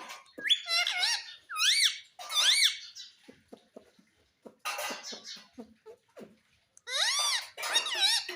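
Pet parrot giving shrill squawking calls that rise and fall in pitch, in a run of several calls, then a rougher squawk midway, then another series of arched calls near the end.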